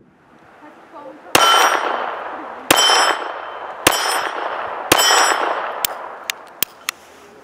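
Four .22 LR shots from a Taurus PT22 Poly pistol about a second apart, each followed by the long ringing of a steel target plate being hit. A few lighter clicks follow near the end.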